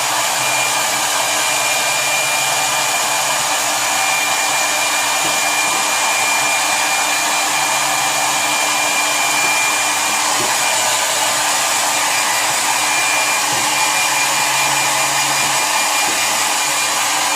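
Handheld hair dryer running steadily: a constant blowing rush with a thin, steady high whine.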